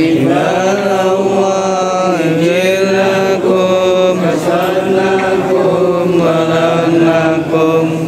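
A group of voices chanting an Islamic prayer in unison, in long held phrases whose pitch rises and falls together over a steady low drone.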